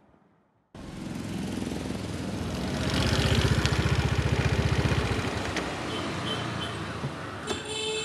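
Motor scooter engine running amid street traffic, starting abruptly just under a second in and loudest about three to five seconds in as the scooter pulls up, then easing off. A vehicle horn toots briefly near the end.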